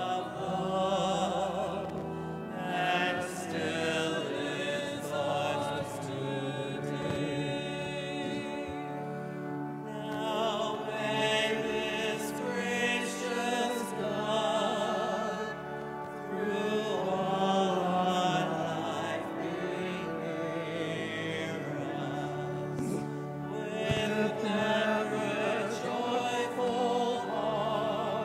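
A closing hymn: voices singing with vibrato over steady instrumental accompaniment.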